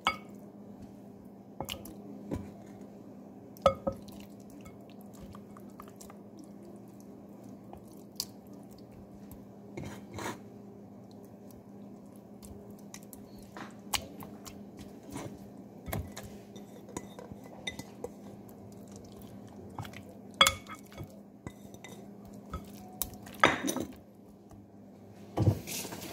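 Raw lamb chops being handled in a bowl of kiwi marinade: scattered clicks and knocks of the bowl and utensils, with a few louder clinks about ten seconds in, at twenty seconds and near the end, over a steady low hum.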